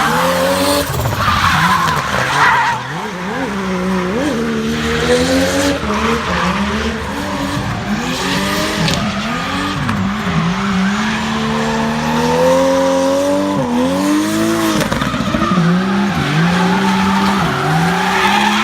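Toyota 2JZ inline-six in a BMW E36 drift car, revving up and down over and over as it holds a drift, with tyres squealing and skidding underneath.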